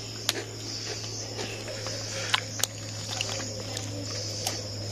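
Insects trilling steadily in the night air over a low steady hum, with a few sharp snaps as crisp butter biscuits are broken apart by hand.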